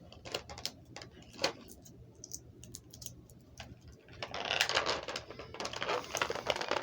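Action-figure packaging being handled as the figure is freed from it: scattered light clicks and taps, then about four seconds in a dense stretch of crinkling and rustling plastic.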